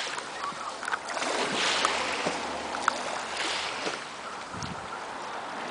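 Water splashing and churning around two people who have just plunged in off a dock, with wind on the microphone; the noise swells twice.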